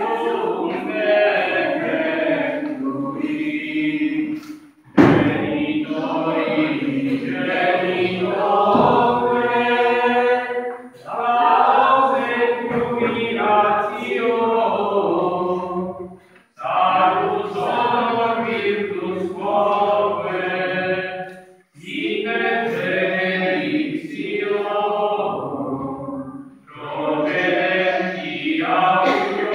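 A group of voices singing a Eucharistic hymn before the exposed Blessed Sacrament, in phrases of about five seconds with short breaths between them.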